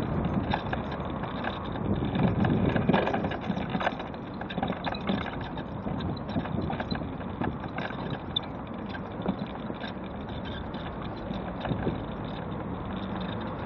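Mobility scooter riding over paving slabs: a steady rumble with frequent small knocks, wind on the microphone, and cars passing on the road beside.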